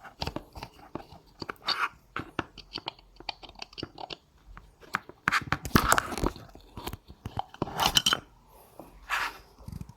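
Hands working on the opened electric scooter's parts and wiring: irregular clicks and crinkly crackling, loudest in two spells about five to six seconds and eight seconds in.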